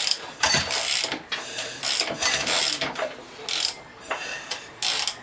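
Hand ratchet wrench clicking in a run of short, uneven strokes, about two a second.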